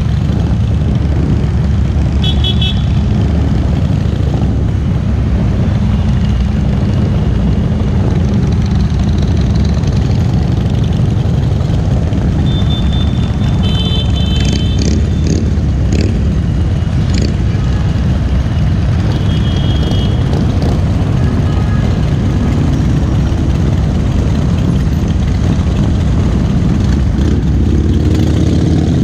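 Motorcycle engine rumbling steadily at low riding speed amid many other motorcycles, with wind on the microphone. A few short high-pitched toots cut through about two seconds in, around the middle, and again a little later.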